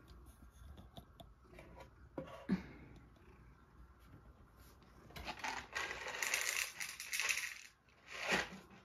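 Dry cat kibble rattling and rustling as it is poured out for the cat, a dense rattle lasting about two and a half seconds starting about five seconds in, after a few small clicks and a knock.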